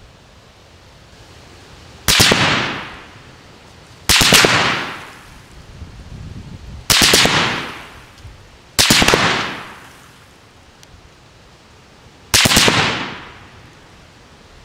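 Five short bursts of full-automatic military rifle fire, a few rounds each, spaced about two to three seconds apart. Each burst fades out in a long echo.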